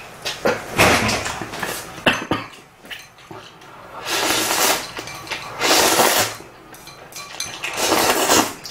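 A person slurping instant ramen noodles and broth from a bowl, four long slurps with a few small clicks of chopsticks against the bowl.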